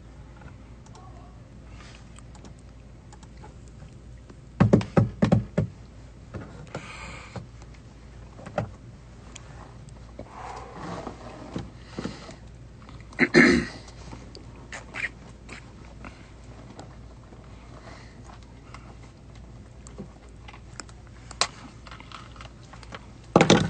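A steady low room hum with scattered thumps and clicks, including a quick run of knocks about five seconds in and single louder ones near the middle and at the end.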